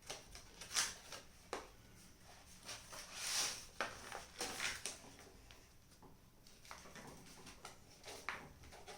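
Sheet of paper being folded and creased by hand: faint, irregular rustles and short crinkles.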